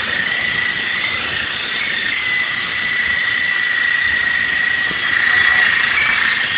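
Small RC toy helicopter's electric motors and rotors running with a steady high whine that wavers slightly in pitch.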